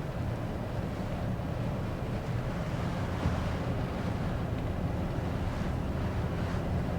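Steady low road and engine rumble heard from inside the cab of a moving vehicle.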